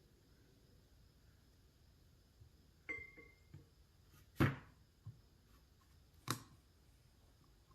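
A few light clicks and knocks of metal parts and tools handled during hydraulic cylinder seal work: a clink with a brief ring about three seconds in, a sharper knock about halfway, and another knock near the end.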